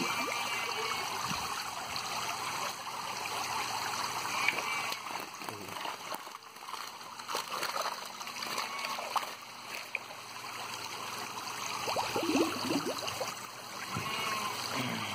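Water jets from a perforated PVC spray-bar aerator splashing and trickling steadily into a fish tank, with sloshing as a hand net is swept through the water.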